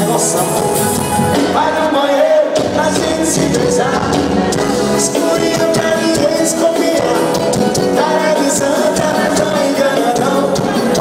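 Forró band music with a steady beat and a melodic lead line; the low end drops out for a moment about two seconds in.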